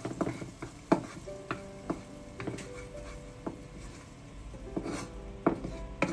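Tomato paste frying in oil in a nonstick pan, stirred and scraped with a wooden spatula. The wood knocks sharply against the pan about ten times, loudest about a second in and near the end.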